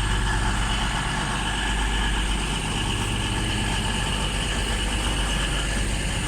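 Steady hum of an electric train standing at the platform: a low rumble with a faint, steady high whine.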